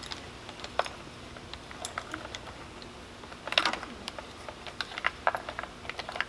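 Small metal clicks and light rattles of a saw chain and bar being handled and fitted onto a Stihl MS193T chainsaw, scattered and irregular, with a brief cluster about halfway through.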